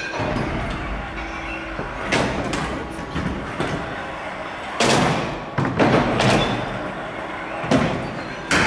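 Stunt scooter's wheels rolling on concrete, with several hard knocks of the scooter landing and striking the ramp and rail: about five loud thuds, the biggest about five seconds in.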